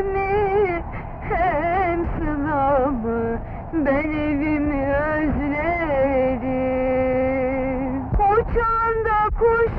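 A woman's voice singing a slow, wavering, ornamented melody with long held notes, the longest held for about a second and a half near the end.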